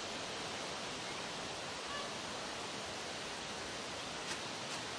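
Steady, even outdoor background hiss with no distinct event, broken only by two faint clicks about four seconds in.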